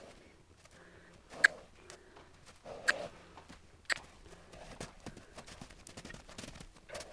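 Young horse's hooves moving over a sand paddock: a few sharp knocks in the first four seconds as it walks, then quicker, softer hoofbeats as it picks up into a trot and canter.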